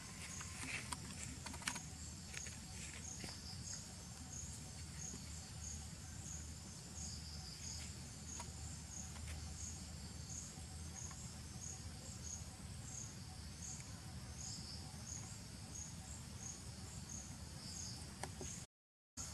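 An insect chirping in an even, high-pitched rhythm, about a chirp and a half a second, over a low steady rumble of outdoor background. There are a few light ticks in the first couple of seconds, and the sound cuts out completely for half a second near the end.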